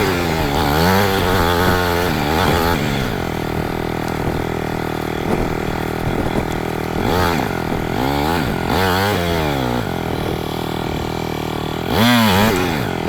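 Yamaha WR250R dirt bike's single-cylinder four-stroke engine under way, its pitch rising and falling over and over as the throttle is opened and closed, with one sharper rev near the end.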